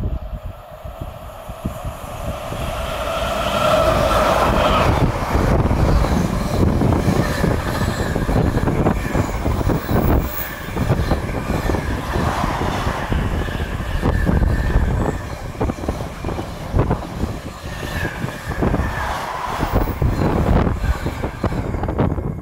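A pair of Class 86 electric locomotives hauling a container freight train pass at speed. A steady humming tone grows louder for the first four seconds or so and cuts off as the locomotives go by. The container wagons then rattle and clatter rapidly over the rails until the train has passed.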